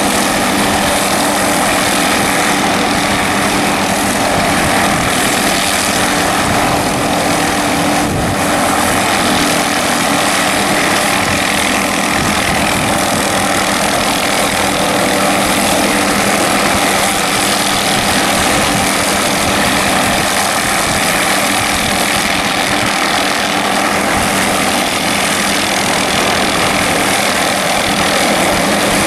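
MD 500-series helicopter hovering close by: steady turbine whine and rotor noise, holding an even level and pitch.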